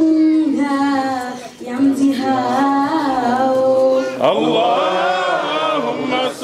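A girl's solo voice chanting an Islamic devotional poem for the Prophet's birthday (Mawlid) into a microphone. She sings long held notes, and from about four seconds in they glide and waver in ornaments.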